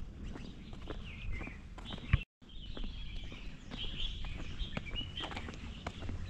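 Small birds chirping repeatedly, over footsteps on a trail and a low steady rumble. A sharp click about two seconds in is followed by a brief cut-out of the sound.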